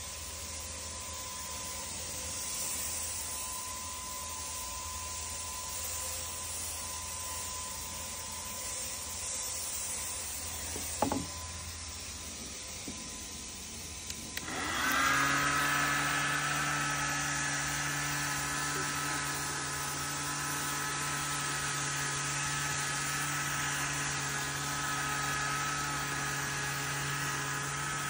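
A steady hiss, then about halfway through a small electric motor starts and runs steadily with a constant hum.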